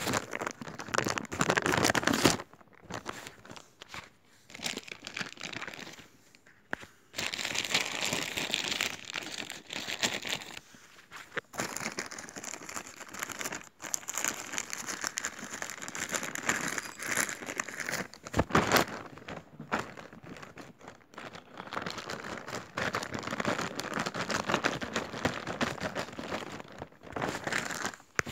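Plastic packaging being crinkled and handled while being unwrapped, in stretches of crackling with short pauses between.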